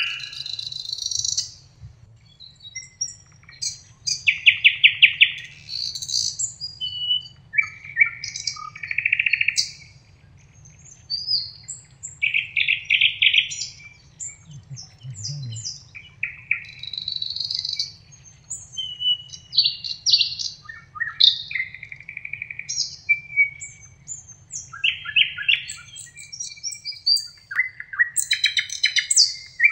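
Songbirds singing in chorus: short, varied phrases and rapid trills follow one another with hardly a pause, several birds overlapping.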